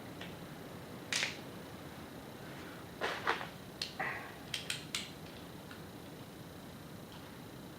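Handling noises from insulation work: a few brief rustles, then a quick run of sharp light clicks about four to five seconds in.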